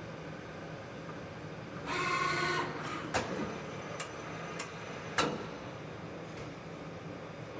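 CNC lathe running with a steady machine hum. About two seconds in it gives a short whirring burst, followed by four sharp clicks over the next two seconds.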